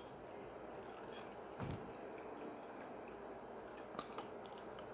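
Faint chewing and mouth sounds of someone eating seafood-boil food, with a few soft clicks and one low thump about a second and a half in.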